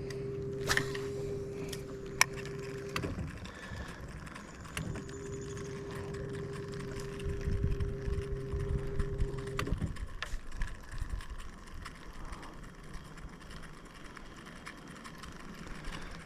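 Electric trolling motor running with a steady whine, switched off about three seconds in, back on about two seconds later and off again near the middle. A couple of sharp knocks come in the first few seconds.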